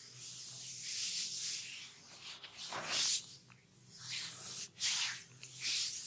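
Massage hands rubbing and sliding over skin, a run of swishing strokes: one long stroke at the start, then several shorter ones about a second apart.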